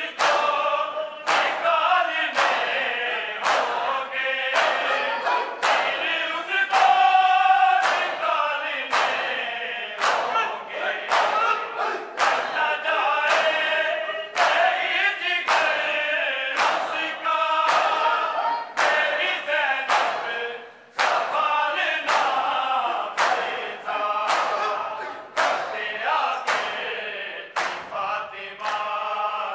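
Group of men reciting a noha in chorus, with the crowd's matam (open-handed chest-beating) landing in time as sharp slaps, a little faster than once a second.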